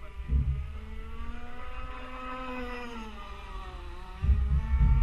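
Two-stroke petrol engine of an RCMK-powered radio-controlled monohull boat running flat out across the water, its pitch rising and then falling as it sweeps past. Low wind rumble on the microphone comes briefly near the start and is loudest near the end.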